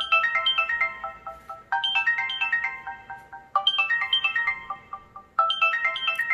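A Samsung Exhibit 4G ringtone: a short phrase of quick, clear notes stepping down in pitch, then a few repeated notes fading away, played four times, about every two seconds.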